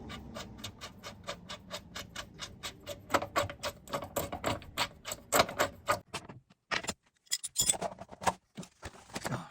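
Ratchet wrench clicking rapidly and evenly, about five clicks a second, as a seatbelt anchor bolt is run in. After about six seconds the clicking breaks off into irregular clicks and rattles.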